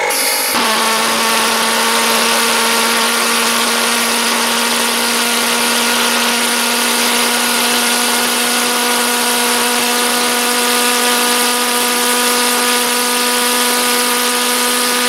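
Hobby King Redhead valved pulsejet engine running flat out on a test stand: a loud, steady buzzing drone at one unchanging pitch that sets in about half a second in.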